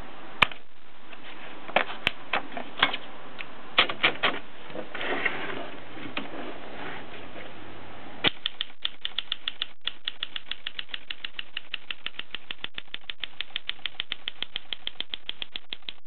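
Gossen Tippa portable typewriter: first a few irregular clicks and knocks as the paper and carriage are handled, then from about eight seconds in a steady, even run of key strikes, about five a second.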